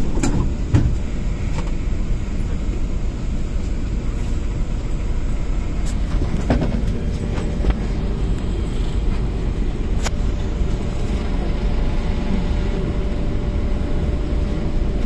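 Cabin noise of an MTR K-train pulling away from the platform: a steady low rumble of the running train, with a couple of knocks in the first second and a faint steady whine from about six seconds in.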